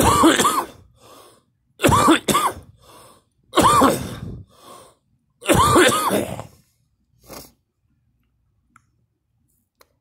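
A person coughing hard in four separate fits, most of them two coughs close together, the last about six seconds in.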